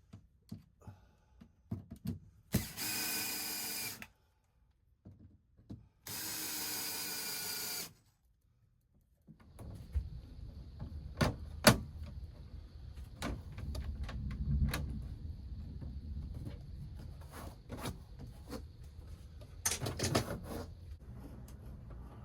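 A power drill running in two short bursts, about a second and a half and then two seconds, as on screws or bolts being driven, with small ticks between. About halfway through, a steady low hum with scattered clicks and knocks takes over.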